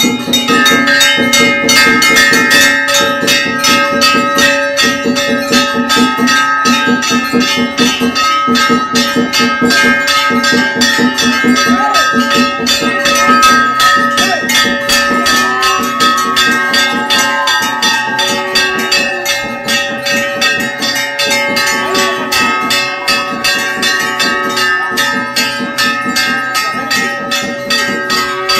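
Temple bells ringing continuously, struck in a rapid, even beat over several steady ringing tones, with some percussion.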